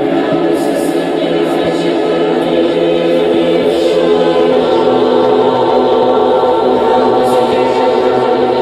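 Noise music: a loud, dense drone of many held tones stacked together, with faint hissy flares higher up.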